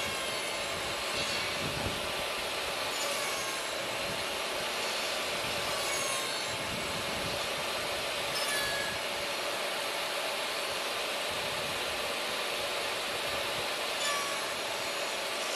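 Table saw running steadily, a constant hiss with a steady tone, while finger-joint slots are cut in a board on a crosscut sled.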